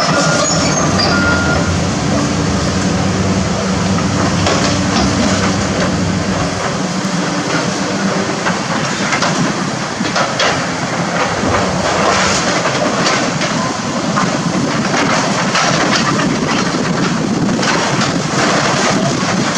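Hydraulic excavator with a demolition grapple tearing down a building: its diesel engine running under continuous crunching and clattering of metal and debris, with many sharp knocks.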